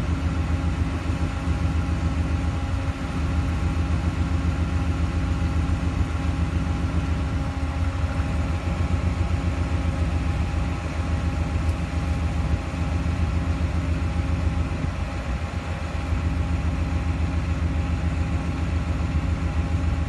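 Car engine idling steadily, a low, fast, even pulse that does not change.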